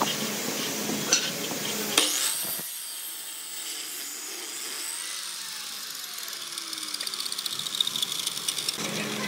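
Miter saw cutting through a thick wooden block. There is a sharp start about two seconds in, then a high whine that slowly falls in pitch, with quick ticking near the end.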